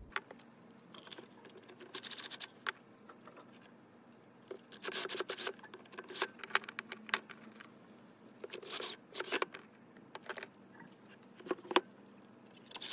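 Cordless drill-driver running in several short bursts, driving screws into a bench grinder's steel base plate, with clinks and scrapes of screws and metal being handled between the bursts.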